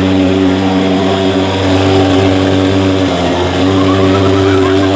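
Portable thermal mosquito fogging machine running, its pulse-jet engine giving a loud, steady drone that dips briefly about three seconds in.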